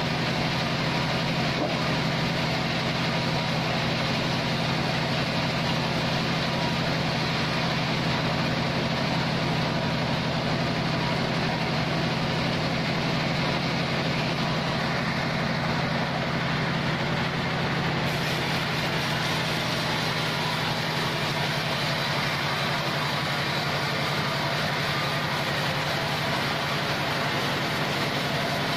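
Large log band sawmill running steadily: a constant machine hum with a dense hiss over it.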